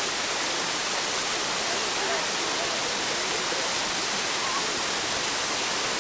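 Small waterfall splashing down a rock face: a steady rush of falling water.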